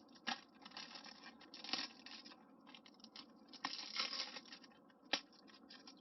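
Plastic wrapping being torn and peeled off a Blu-ray case: irregular crinkling and tearing, with a sharp click near the start and another near the end.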